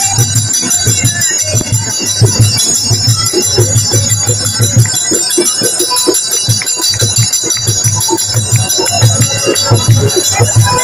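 Live devotional kirtan music: a dholak drum keeps a steady, driving beat under a harmonium, with bright metallic jingling over the top.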